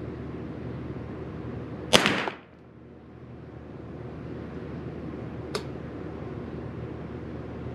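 One shot from a Derya TM22 semi-automatic .22 LR rifle about two seconds in, with a short echo in the indoor range. A much fainter sharp tick follows about five and a half seconds in.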